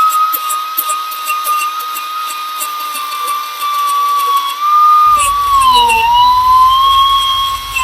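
Air die grinder with a cut-off wheel whining at high speed while grinding the pins of a #40 roller chain flat, with a gritty crackle of the wheel on steel. Its pitch sags briefly about six seconds in.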